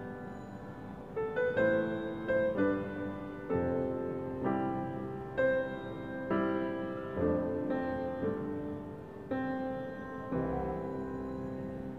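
Background piano music, with a new note or chord struck about once a second and fading between strikes.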